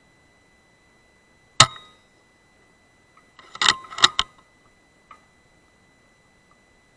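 A Weihrauch HW100S .22 PCP air rifle fires once with a sharp crack, then about two seconds later a quick run of metallic clicks as the action is cycled for the next pellet, with one more light click after. A faint steady high electronic tone sits underneath.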